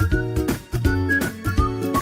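Upbeat, playful background music with a bouncy bass line, a steady beat and a short-note melody.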